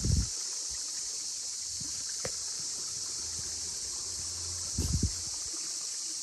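A steady, high-pitched chorus of insects in summer woodland, with low thumps near the start and again about five seconds in.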